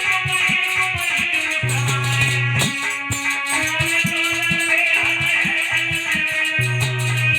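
Instrumental music with a plucked string, guitar-like lead over held bass notes and a steady percussion beat.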